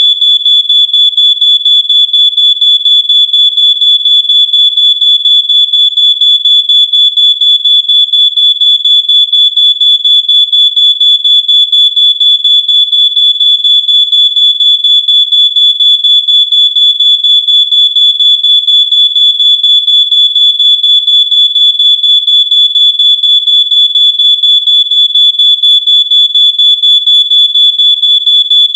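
Smoke alarm sounding, a loud high-pitched beep pulsing rapidly and evenly, about four times a second, without a break.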